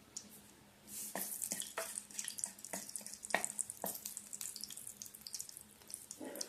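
Cumin seeds and bay leaves sizzling and crackling in hot oil in a pan, starting about a second in, with many sharp pops over a dense hiss.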